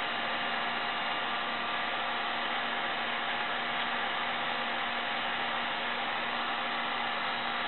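Electric heat gun running steadily: an even rush of blown air with a faint steady motor hum.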